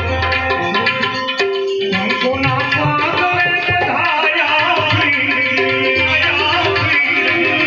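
Music: drums playing a rhythm under a melody.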